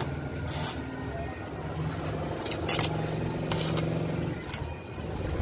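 An engine running steadily at a low, even pitch, easing off near the end, with a few sharp clicks and scrapes over it.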